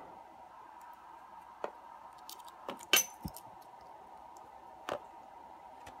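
A few light metallic clicks and clinks as a small lock, its key and a thin metal shim are handled and bent by hand, the loudest about three seconds in. A faint steady hum runs underneath.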